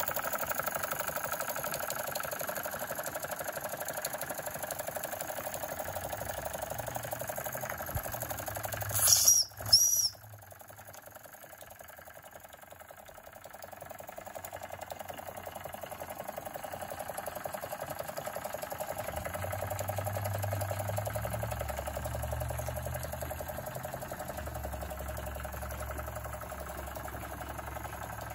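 Jensen live steam engine running steadily, driving belt-driven accessories and a line-shaft transmission, with a fast, even mechanical clatter. Two short, loud sharp sounds come about nine and ten seconds in.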